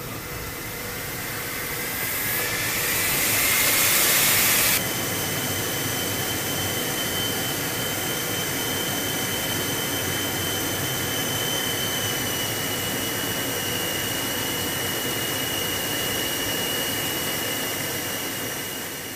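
A B-52H's eight TF33 turbofan jet engines heard from inside the cockpit at high power. A loud rush builds over the first few seconds while a whine rises in pitch. It then drops suddenly to a steady, slightly quieter rush with a high, steady whine.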